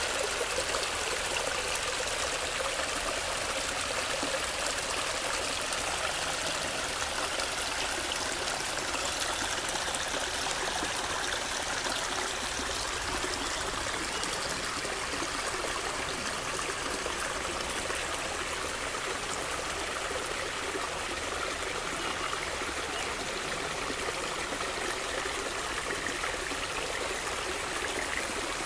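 Small stone-lined brook running steadily over stones and low drops.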